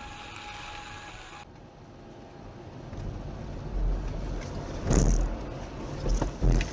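Road and engine noise heard from inside a car driving on a wet road, with the sound changing abruptly about a second and a half in. Two loud thumps stand out, one about five seconds in and one near the end.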